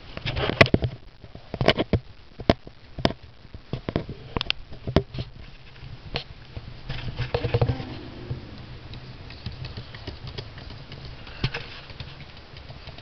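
A cat scratching and pawing at a window and its grille: irregular sharp taps and scrapes, most frequent in the first five seconds, with another cluster a few seconds later and only a few scattered taps after that.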